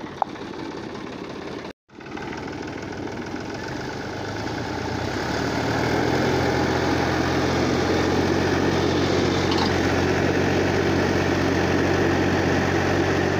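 Diesel tractor engine working under load while towing a broken-down tractor through loose dirt. It swells louder over a couple of seconds, then holds a steady, heavy running note.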